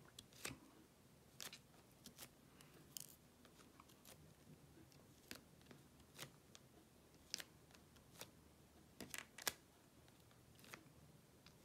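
Faint, irregular small clicks and taps, about a dozen, from handling a diamond-painting tray and its resin drills on a tabletop.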